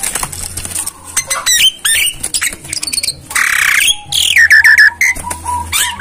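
Javan myna calling in a busy run of clicks, harsh squawks and short falling whistles, with a long rasping screech about halfway through; the owner takes it for a bird wanting to mate.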